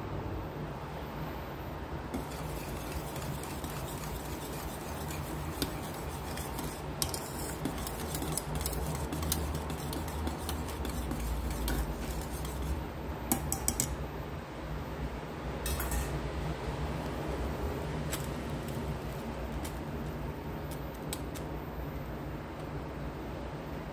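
A spoon stirring liquid in a metal pot on a stovetop, with a few sharp clinks of metal on metal over a steady low hum.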